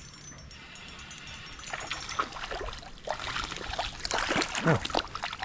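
A hooked wild brown trout splashing and thrashing at the surface of a shallow river as it is reeled in, over the steady noise of the stream. The splashes come irregularly, starting about two seconds in and loudest near the end.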